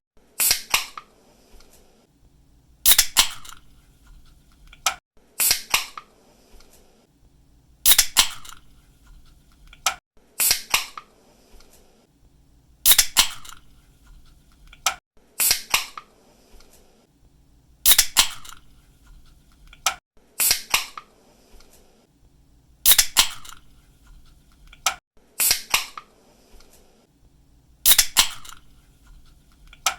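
Aluminium drink can pull tabs snapping open again and again, each a sharp crack with a short hiss of escaping gas, about every two and a half seconds. A faint tick of the tab being lifted comes just before every other opening.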